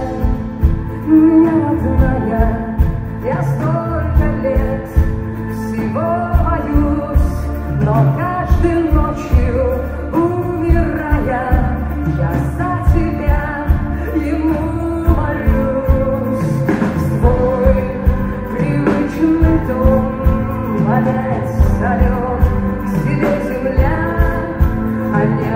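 Live rock band music with a steady drum beat and guitar, with a woman's voice singing over it.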